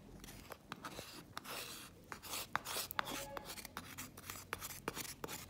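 Metal plaster spatula scraping wet dental plaster out of a flexible rubber mixing bowl into a small cup: a run of short, irregular scrapes and clicks.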